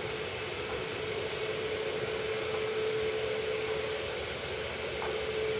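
Steady mechanical hum, one constant tone over an even hiss.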